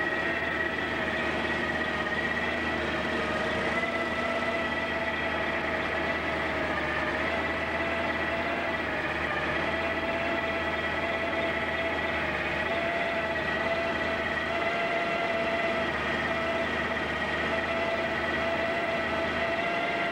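Chevrolet 454 big-block V8 running steadily at low speed, around 1000 rpm, through open headers, with a steady high whine over the engine's low hum.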